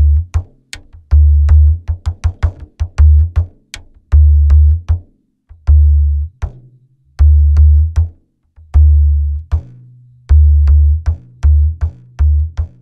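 Surdo, the deep Brazilian bass drum, played in a repeating rhythm: a low boom about once a second, with shorter, muted strokes in between.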